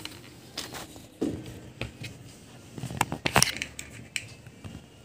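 Handling noise of things being moved about on a tabletop: a scatter of short knocks and rustles, with the loudest clatter about three seconds in.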